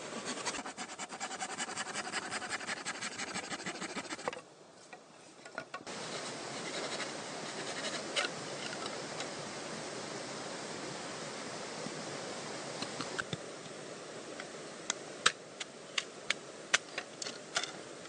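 A knife working on green bamboo: fast, rhythmic cutting strokes for about four seconds, then a steady hiss of forest background, then a run of about eight sharp knocks near the end.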